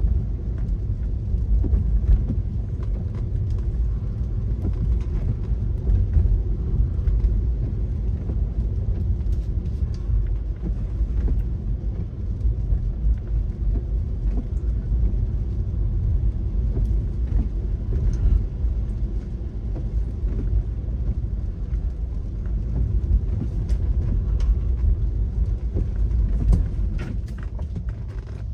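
Car driving along, a steady low rumble of road and engine noise with faint scattered ticks.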